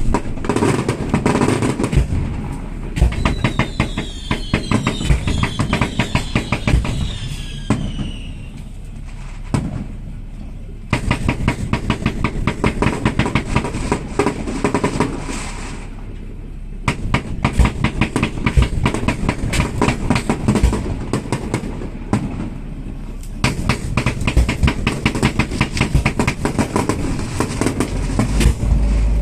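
Fireworks barrage: rapid runs of crackling bangs lasting several seconds each, with short lulls in between. Several falling whistles sound between about 4 and 8 seconds in.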